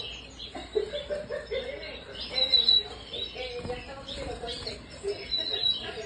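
A roomful of red-factor canaries chirping and twittering in wire breeding cages, many short calls overlapping. Louder high trills come about halfway through and again near the end.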